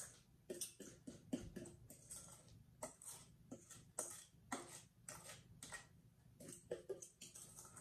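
A utensil scraping and clinking against a stainless steel mixing bowl as thick rhubarb filling is scraped out: faint, irregular clicks and scrapes, some with a short metallic ring.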